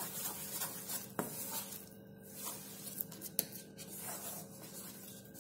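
Thick barfi mixture being scraped and worked around a metal kadai, with an uneven rubbing and scraping sound and a few sharp clicks of the utensil against the pan, the loudest about a second in and again past three seconds.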